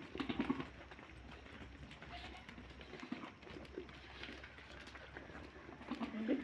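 Goats calling faintly in short bleats, one about a third of a second in and another near the end, over a low steady hum.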